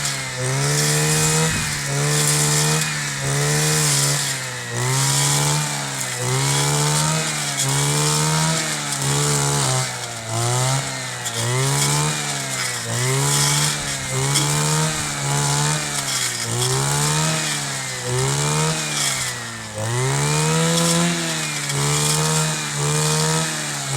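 Kioritz 260 two-stroke brush cutter running at high revs while cutting grass. Its engine speed rises and falls about once a second.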